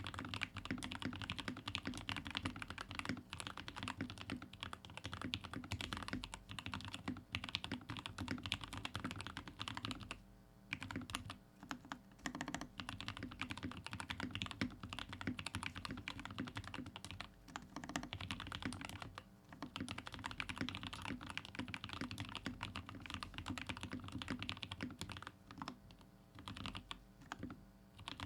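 Typing on a Royal Kludge RK61 60% mechanical keyboard with stock Gateron Milky Yellow linear switches and GMK ABS keycaps, its case filled with extra foam, plate tape-modded and stabilisers lubed. Keystrokes come in a fast, continuous clatter, broken by a few short pauses.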